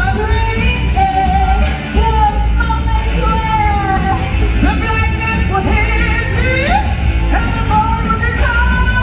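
Loud live-show music: a lead vocalist sings held notes with vibrato, sliding upward a couple of times in the middle, over rock-style band backing with heavy bass.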